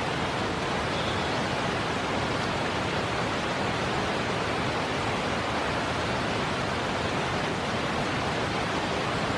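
A steady, even rushing noise with no distinct events in it.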